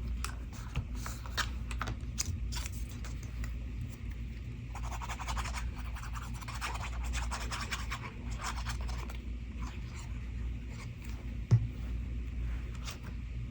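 Cardstock and paper pieces being handled, rubbed and pressed down by hand while being glued on: a run of short scratches and light taps, a denser stretch of scratchy rubbing in the middle, and a single sharper knock near the end.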